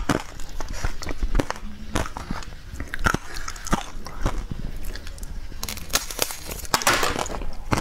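Close-miked crunching: a person biting and chewing a thin, brittle, powder-coated sheet, giving sharp, irregular cracks one after another.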